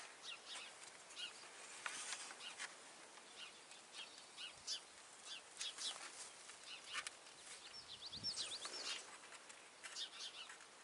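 Faint bird chirping: scattered short, high chirps, with a quick run of whistled notes about eight seconds in.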